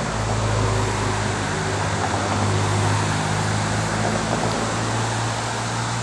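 Steady outdoor background noise with a constant low hum underneath, slightly louder in the middle.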